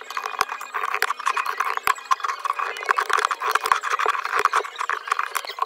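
iPhone 13 Pro Max back glass cracking and crunching under a pointed metal glass-breaking pen: a dense run of sharp clicks and crackles that stops suddenly at the end.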